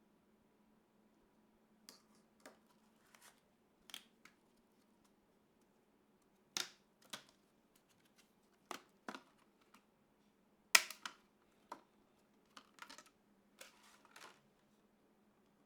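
Scattered clicks and light plastic rustles of PC components being handled and fitted by hand, with one sharper click about eleven seconds in.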